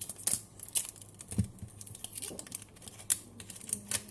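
Football trading cards being flicked through by hand: irregular, sharp clicks and snaps of card stock, several a second.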